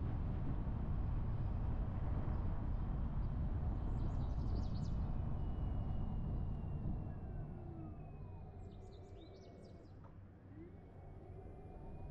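Car driving: a steady low rumble of road and engine noise that dies away from about seven seconds in as the car slows to a stop at a stop sign. Birds chirp in short bursts twice.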